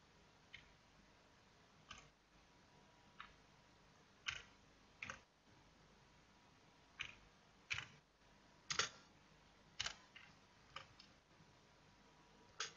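Computer keyboard keys pressed one at a time: about a dozen faint, separate clicks at a slow, uneven pace as a command is typed.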